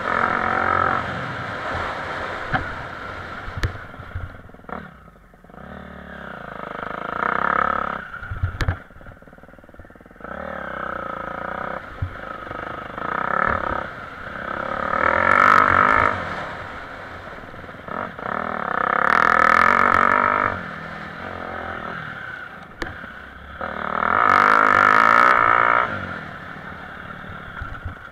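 Motocross bike engine heard from on the bike, revving up under throttle and dropping off again, over and over, as it is ridden around a dirt track. The longest, loudest full-throttle pulls come in the second half.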